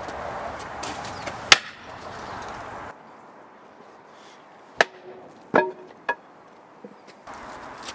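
Metal baseball bat smashing into wooden furniture: one hard crack about one and a half seconds in, then three more blows in quick succession near the middle, one of them ringing briefly.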